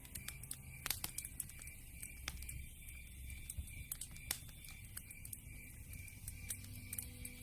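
Wood fire crackling, with irregular sharp pops over a low rumble of burning logs; the loudest pops come about a second in and a little after four seconds.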